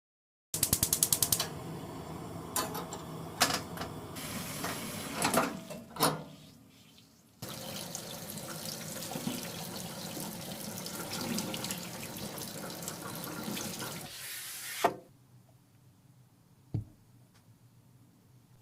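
Water running from a kitchen tap in two spells, each cut off when the tap is shut. A quick rattle of clicks sounds as it first turns on, and a single knock comes near the end.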